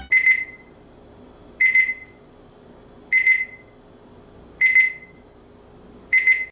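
Digital fridge thermometer's high/low temperature alarm (ETI ThermaGuard 102) beeping: five short, high electronic beeps, evenly spaced about one and a half seconds apart.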